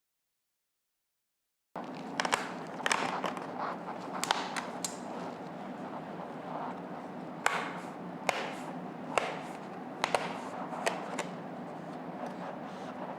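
After a second or two of dead silence, irregular sharp clicks and snaps as a laptop's metal bottom panel is pried off and its retaining clips release one by one.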